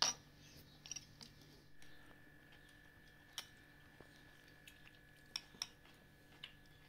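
Metal spoons clinking against china bowls while eating soup: one sharper clink at the start, then a few light scattered taps and ticks.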